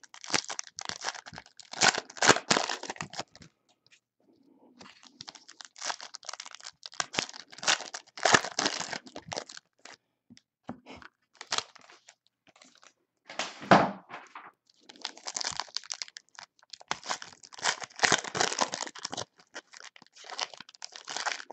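Trading-card pack wrappers for Panini NBA Hoops being torn open and crinkled, with the cards handled between tears. The sound comes in irregular crackly bursts with short pauses.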